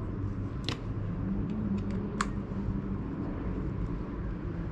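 Two short, sharp clicks of headset parts being fitted onto the bike's steerer, over a steady low background rumble.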